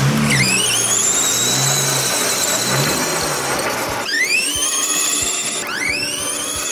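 Electric drive motor and gearbox of a Ducati kids' ride-on motorcycle whining as it spins up: a high whine that rises quickly in pitch and then holds steady, starting over about four seconds in and once more near the end.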